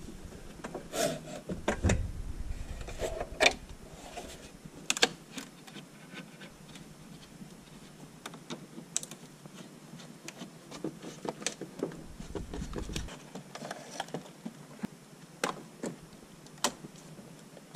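Scattered clicks, ticks and rubs of plastic dash trim and wiring connectors being handled, pried with a screwdriver and unplugged, with a few dull thumps.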